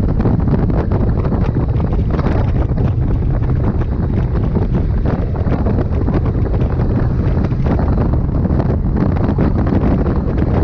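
Wind buffeting the microphone: a loud, steady low rumble that never lets up.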